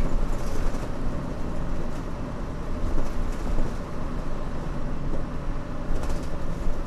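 Mitsubishi Fuso Aerostar city bus heard from inside the cabin, its 6D24 six-cylinder diesel running with a steady low rumble.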